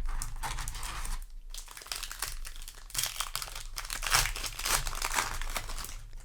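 Foil Magic: The Gathering play booster wrapper crinkling as it is handled, in uneven bursts with a brief lull about a second in.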